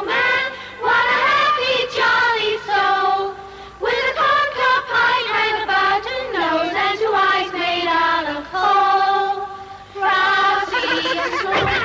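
A chorus of high voices singing a song in phrases of a few seconds, with long held notes and short breaths between phrases.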